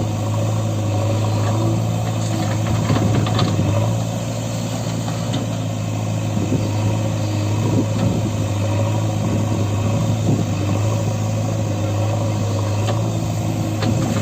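Heavy diesel engine of a backhoe loader or tractor running steadily at a constant low speed.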